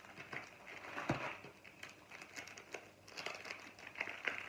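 Clear plastic wrapping crinkling and crackling as a rolled diamond painting canvas is handled and unwrapped. About a second in there is a single dull knock, the roll set down on the wooden table.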